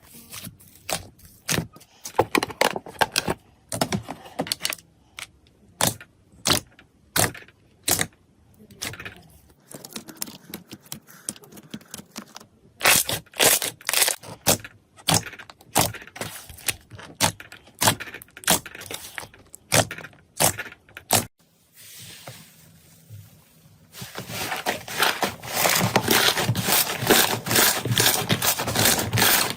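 Slime being squeezed and poked, giving irregular sharp clicks and pops. About 24 s in, a dense, continuous crackle takes over.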